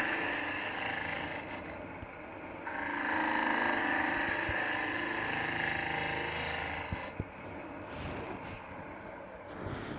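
Robert Sorby ring tool cutting into a spinning green-wood end-grain bowl blank on a wood lathe: a steady hiss of shavings peeling off, broken briefly about two seconds in and then resumed. About seven seconds in the cut stops with a light knock and only the lathe is left running.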